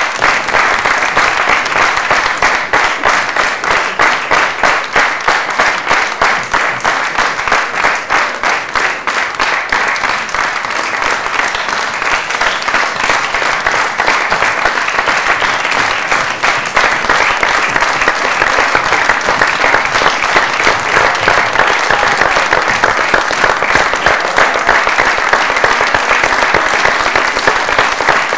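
Theatre audience applauding, a dense, steady clapping from many hands.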